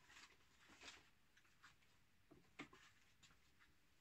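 Near silence: room tone with a few faint clicks and rustles, the clearest about two and a half seconds in.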